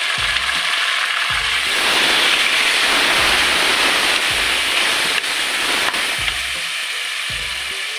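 Tomatoes and onions sizzling in hot oil in an aluminium pressure cooker while being stirred with a wooden spatula. The sizzle swells about two seconds in and eases off near the end.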